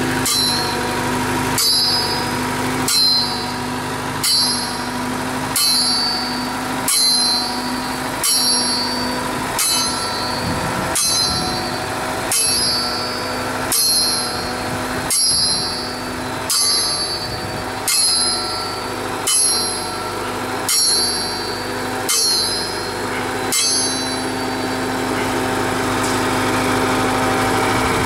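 Rope-and-friction-drum drop hammer on a small drill rig striking the drill steel again and again, about one ringing metal-on-metal blow every second and a half, with some eighteen blows before the strikes stop near the end. Under it the diesel motor that drives the rig's hydraulic pump runs steadily.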